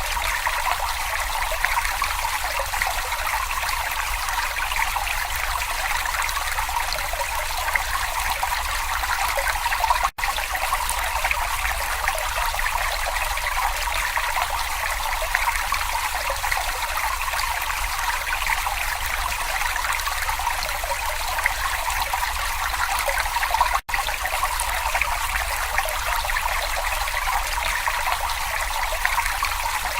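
Babbling brook: a steady trickling rush of stream water. The sound cuts out for an instant twice, about ten seconds in and again about two-thirds of the way through.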